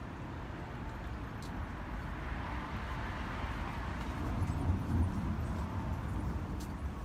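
Steady outdoor traffic rumble, with a vehicle passing and swelling in level about three to five seconds in.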